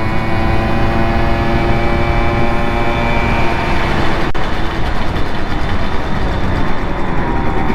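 Simson moped's two-stroke single-cylinder engine running at a steady speed while riding. Its tone holds level, then eases off and drops about three and a half seconds in, with a single click just after.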